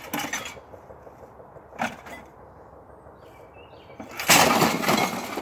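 Two short knocks of an axe against an old TV set's casing, then a loud clattering crash of about a second as the set is thrown and lands tumbling on the ground.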